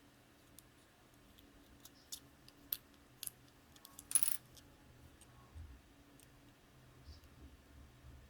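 Scattered sharp plastic clicks and taps, the loudest a short rattle about four seconds in, from the buttons of an SQ8 mini camera being pressed as it fails to turn on.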